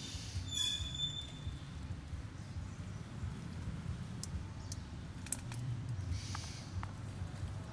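Quiet ambience of faint rustles and scattered clicks over a steady low rumble, with one brief high-pitched squeak about half a second in and a soft scratchy rustle about six seconds in.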